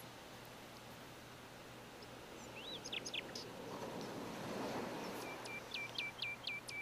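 A small bird chirping: a couple of rising chirps about three seconds in, then a quick run of about seven repeated down-slurred notes near the end. A faint steady low hum runs underneath.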